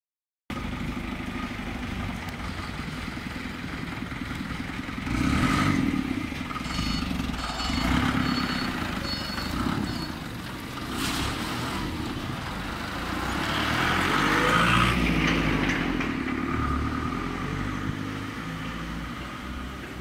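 Forklift engine running and revving while it moves loads, rising in pitch and loudness about two-thirds of the way through, with some clatter and a short run of high-pitched beeps a few seconds in.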